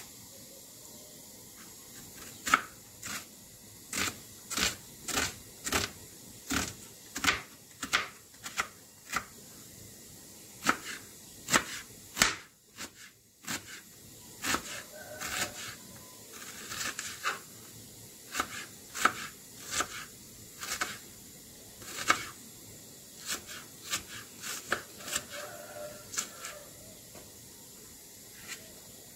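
Kitchen knife chopping an onion on a plastic cutting board: uneven sharp taps of the blade hitting the board, about one or two a second, with a few soft scrapes and a brief pause about halfway through.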